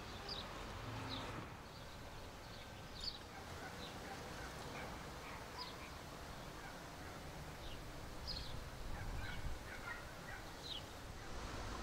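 Faint birdsong: scattered short, high chirps, about a dozen across the stretch, over a steady low background hiss.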